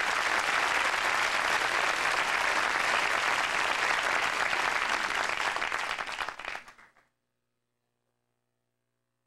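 Studio audience applauding steadily, then dying away about six and a half seconds in, leaving near silence.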